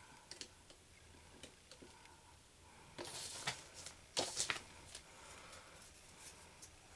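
Small puzzle pieces of a slot-together dinosaur skeleton model handled on a tabletop: faint clicks and taps, a brief rustle about three seconds in, and a short cluster of louder clicks just after four seconds as a piece is picked up.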